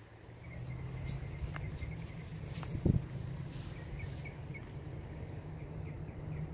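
Wind rumbling on the microphone, with faint, repeated high chirping and a single thump about three seconds in.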